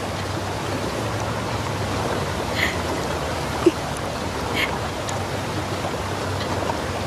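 Steady rushing noise of sea waves and wind on the microphone, with a brief faint higher sound a little past halfway.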